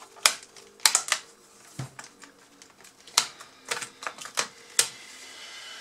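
Sharp clicks and knocks of a laptop's hard plastic parts and small tools being handled during disassembly, about nine in irregular succession.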